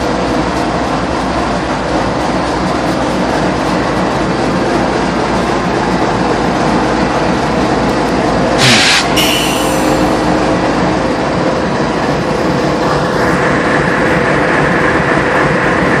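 Canadian Pacific diesel-electric locomotive idling with a steady engine hum. About halfway through, a sudden short, loud hiss of released compressed air lasts about half a second.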